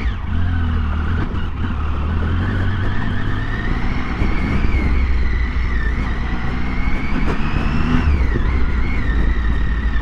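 Triumph Tiger 800's three-cylinder engine running as the motorcycle rides slowly along a dirt track: a steady low rumble with a higher whine over it, the pitch dipping briefly about eight seconds in.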